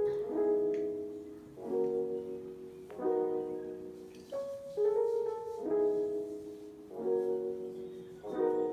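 Background piano music: slow, soft chords, a new one struck about every second and a half.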